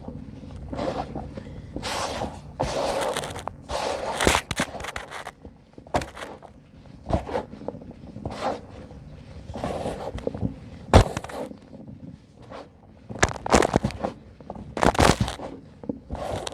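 Lumps of dry pure cement being crumbled by hand: irregular gritty crunching and scraping, broken by sharp snaps as pieces crack, the loudest about eleven seconds in.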